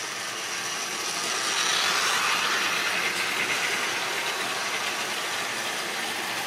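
Model railway train running along the track close by, a steady rattling whirr that grows louder about two seconds in and then slowly fades as it passes.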